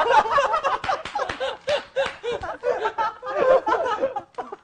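A group of young men laughing hard together in choppy bursts, dying down briefly near the end.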